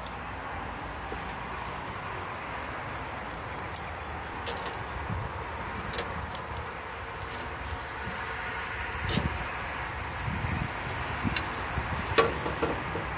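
Pork chops sizzling on a hot grill with a steady hiss, while metal tongs click against the grate and the meat several times as the chops are moved and turned.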